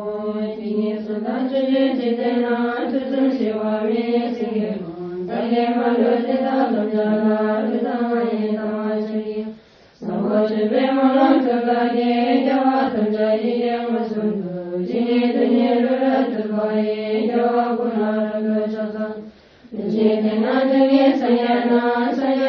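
Melodic Buddhist chanting, sung in long held phrases, with two short clean breaks between phrases.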